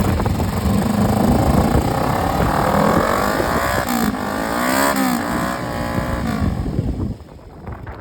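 Motorcycle engine running and being revved several times, the pitch rising and falling with each blip, then dropping away sharply near the end.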